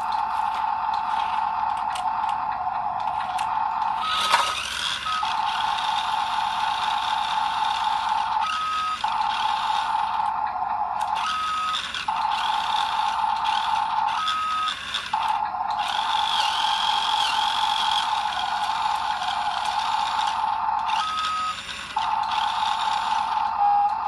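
Electric drive motor and gearbox of a toy RC dump truck whining steadily at one pitch, straining under load, and stepping briefly to a higher pitch every few seconds. A sharp knock about four seconds in.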